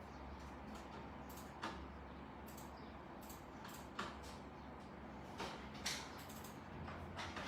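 A handful of light, irregular clicks, about seven in all, over a steady low hum.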